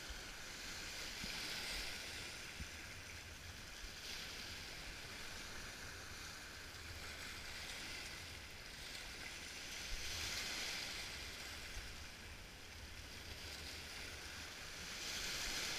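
Small waves breaking and washing over rocks at the water's edge, the surf swelling and easing several times.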